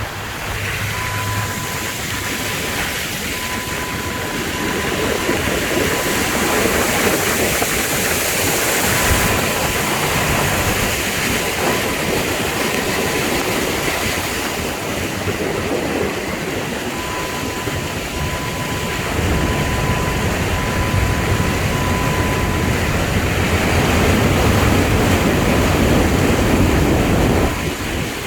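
Hurricane wind and rain buffeting the microphone. The gusts rise and ease, and are strongest near the end.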